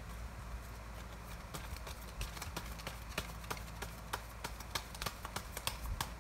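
A run of sharp, irregular clicks that come faster and louder toward the end: a deck of tarot cards being shuffled and handled.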